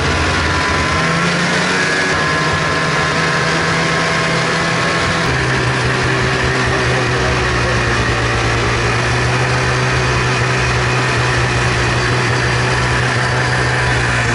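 Ski-Doo snowmobile engine running steadily under way, under a dense steady hiss. The engine note drops slightly about five seconds in.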